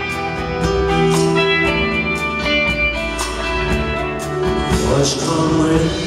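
Live band playing, an electric guitar picking a melody over bass and a steady drum beat.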